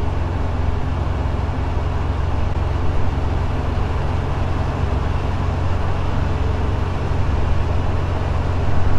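FK9 Mark IV ultralight's engine and propeller droning steadily in cruise flight, with a strong low hum and an even rush of airflow above it.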